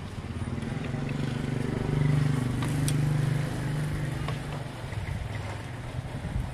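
A passing motor vehicle's engine hum that swells to its loudest in the middle and then fades, with a few light clicks of metal tongs and a plastic food box.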